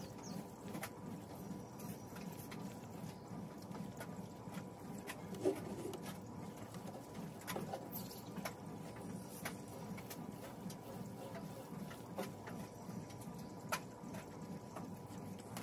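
Small foam paint roller worked over a glass aquarium's frame: soft rolling and scattered light clicks and taps, the loudest about five and a half seconds in, over a steady low hum.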